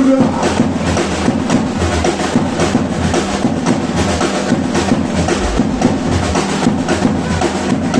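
Live band playing an instrumental passage with no singing: a dense, driving rhythm from timbales and congas over bass guitar.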